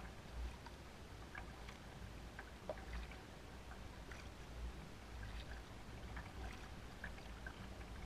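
Double-bladed paddle dipping into calm water from a lightweight solo canoe: faint splashes and drips off the blades through the strokes, over a low rumble.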